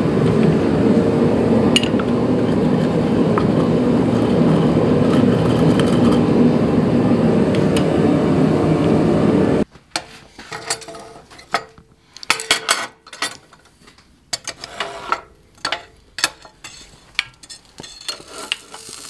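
A forge's steady rushing noise for the first ten seconds or so, cutting off suddenly. Then scattered sharp clinks and clanks as a red-hot iron bar and tongs are set and shifted on the fly press's steel table.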